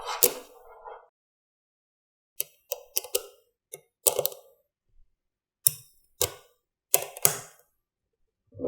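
A series of sharp clicks and knocks from small hard parts, about a dozen of them, irregular and often in twos, with silence between.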